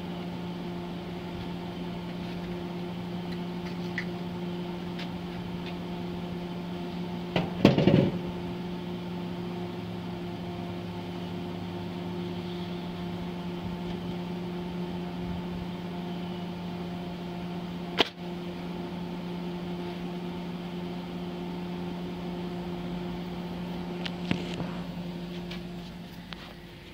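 Steady electrical hum of a Lincoln AC-225 stick welder powered up with no arc struck, together with the 12-volt-to-220-volt power inverter feeding it from batteries. There is a brief louder noise about eight seconds in and a sharp click later on.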